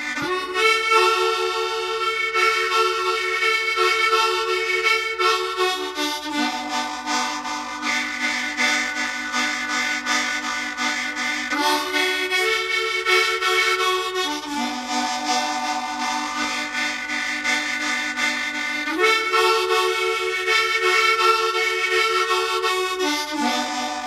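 Harmonica playing slow, long-held chords that shift to a new chord every few seconds.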